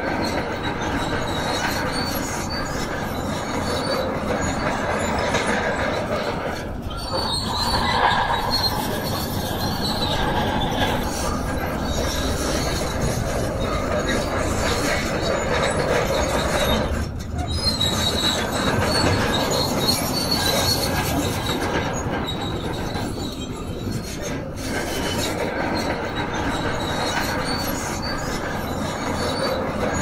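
Heavy machinery working stone: a diesel engine running under load with a steady high metallic squeal and grinding, typical of a crawler bulldozer's steel tracks. The noise eases off briefly three times.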